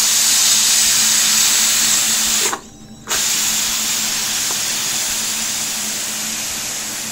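Steam hissing hard out of a Prestige pressure cooker's vent as the whistle weight is held up with a knife to release the pressure. It stops for a moment about two and a half seconds in, then resumes and slowly weakens as the pressure drops.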